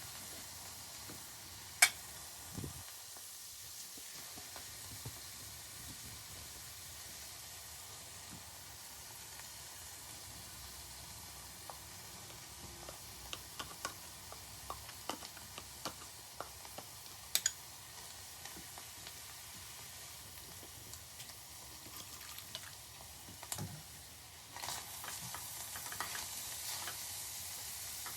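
A pot of green bean stew sizzling on the stove with a steady low hiss while it is stirred, with small scrapes and clicks. Two sharp knocks stand out, one about two seconds in and a louder one about halfway. The sizzle grows louder a few seconds before the end.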